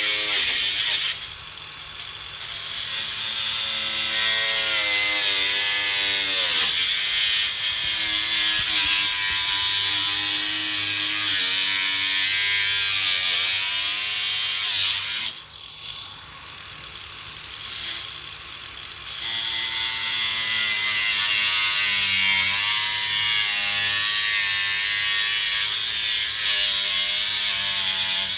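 Handheld electric power tool running in long stretches, its motor pitch sagging under load about six seconds in, with two short pauses, about a second in and about fifteen seconds in.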